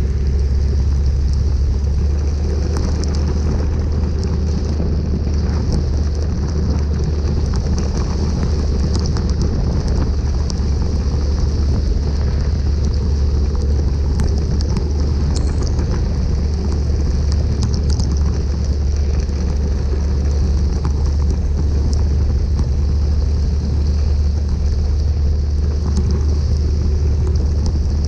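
Steady wind rumble on the microphone of a camera riding through heavy rain, over the hiss of tyres on the wet road, with scattered light taps of raindrops hitting the camera.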